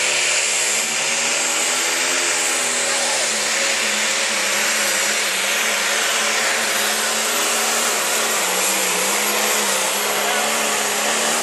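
Turbocharged diesel engine of a light pro stock pulling tractor running flat out under load as it pulls the sled. It is loud and steady, its note wavering slightly, with a thin high whine on top.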